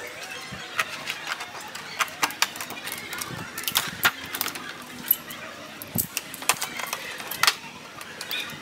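Locking-plier clamps being set on a metal drum hoop over a mylar head: irregular metallic clicks and clatter, the loudest near the end.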